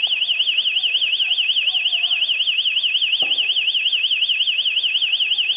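Electronic alarm sounding continuously: a shrill, fast warbling tone that wavers up and down about eight times a second.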